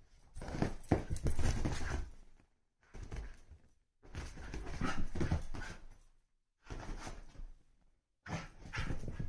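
A Siberian husky scrabbling and rubbing against a leather sofa and ottoman, paws scuffing and knocking on the leather. The sound comes in several short bursts, each cut off abruptly.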